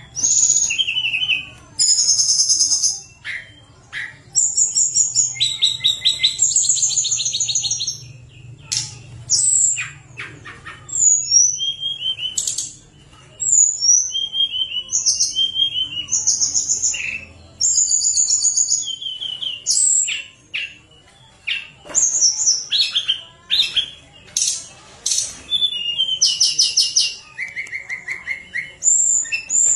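Caged tledekan gunung (a blue-and-orange flycatcher) singing vigorously: a long, rapid string of loud, high, flute-like whistled phrases and trills, one after another with only brief pauses.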